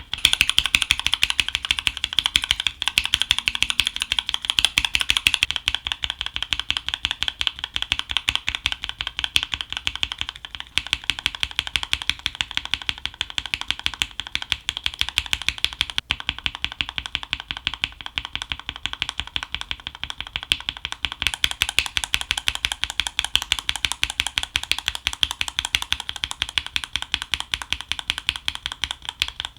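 Continuous fast typing on mechanical keyboards fitted with Gateron Yellow linear switches, stock and lubed variants, a dense run of sharp keystroke clicks. The sound of the strokes shifts slightly a few times as the keyboards change.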